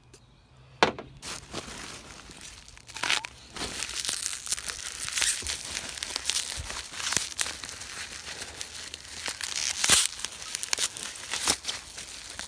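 Plastic bubble wrap crinkling and rustling as hands pull it apart and unwrap it, with a few sharper, louder crackles along the way.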